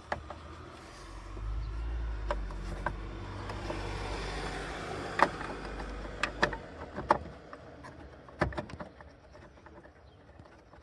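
Sharp plastic clicks and knocks as a bulb holder is worked into a car's rear light unit, several in quick succession from about 5 s in. Under the first half runs a low steady rumble that stops about two-thirds of the way through.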